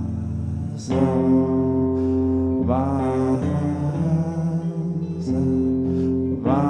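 Live band music between sung lines: guitar-led sustained chords changing every couple of seconds.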